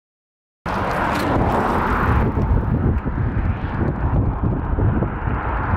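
Wind rushing and buffeting over the microphone on a moving bicycle: a steady, loud rushing noise with a churning low rumble. It cuts in suddenly about half a second in after dead silence.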